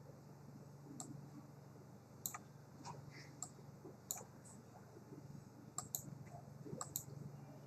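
Faint, irregular clicks of a computer mouse, about a dozen of them, over a low steady hum.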